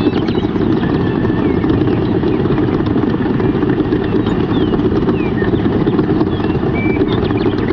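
Small motor running steadily with a fast, even pulsing hum, with a few faint high chirps over it.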